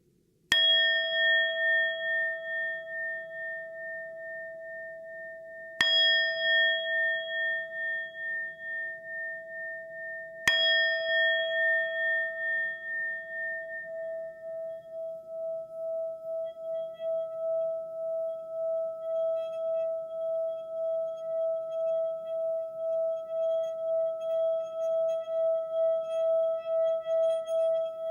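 Singing bowl struck three times, about five seconds apart, each strike ringing on with a long shimmering tone. After the third strike the bowl's tone keeps sounding with a steady wavering pulse.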